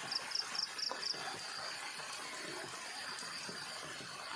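Insect calling: a high pulsing chirp in the first half second, then a steady high buzz. Under it are faint scraping and small knocks of a hand tool working the soil.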